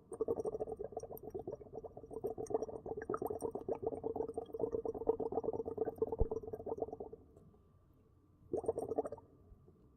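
Air blown into water, bubbling in a rapid run of small pops for about seven seconds, then a second short burst of bubbling near the end.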